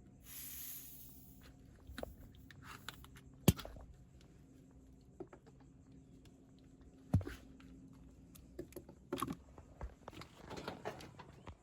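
Hands-on work sounds: a short hiss at the start, then scattered sharp knocks and clicks of tools and parts being handled, with a faint steady hum underneath.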